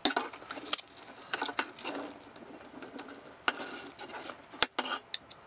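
Metal tongs tearing apart a whole roasted beer-can chicken in a metal pan: irregular crackling and ripping of the crisp skin and meat, with a few sharp clicks of the tongs.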